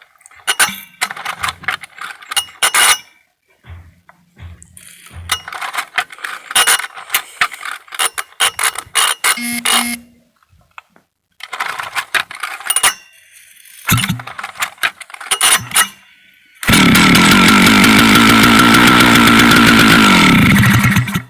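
Flooded Stihl 051 AV two-stroke chainsaw being cranked over, with a long stretch of clicks, rattles and brief sputters. About three-quarters of the way through it catches and runs loud for about four seconds, sags and dies: after sitting for decades it starts but won't keep running.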